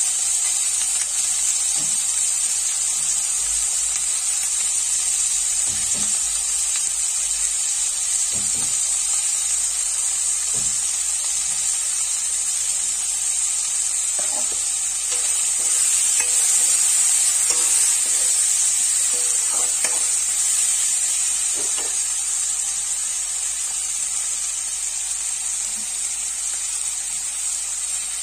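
Onion, capsicum and tomato frying in a metal kadai with a steady sizzle. A few faint knocks of a spoon on the pan come through it.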